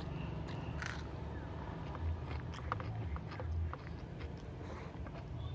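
Close-up eating sounds: small wet clicks and squelches as rice and chicken curry are mixed and squeezed by hand on a banana leaf, over a steady low rumble.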